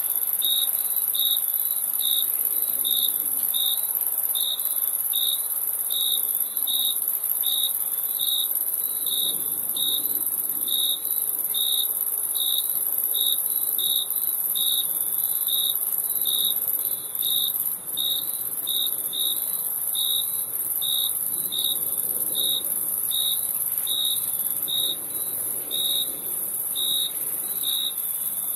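Crickets chirping: a regular chirp about one and a half times a second, over a steady high-pitched insect trill.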